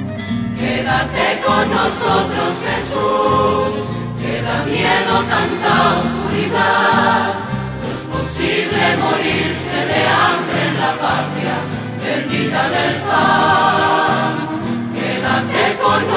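Music: a choir singing a Christian hymn over low instrumental accompaniment.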